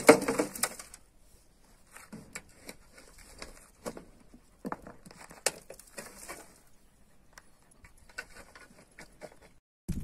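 Steel shovel scraping up dry, dusty dirt and tipping it into a wheelbarrow, in several short bursts of scraping and rattling grit every second or two. The loudest burst is at the very start, with a sharp knock about five and a half seconds in.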